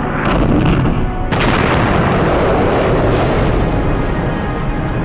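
Documentary music with a bomb explosion: a smaller blast near the start, then a big, sudden one about a second in whose rumble dies away over the next couple of seconds.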